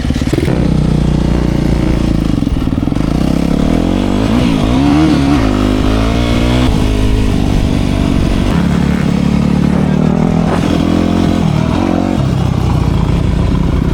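Dirt bike engine running, rising and falling in pitch as the throttle changes about four to seven seconds in, then holding steadier.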